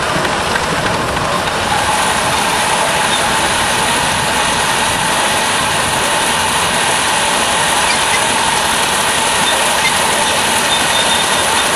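Ride-on live steam miniature locomotive running along the track: a loud, steady rush with no clear beat, growing a little louder about two seconds in, with a faint steady tone added.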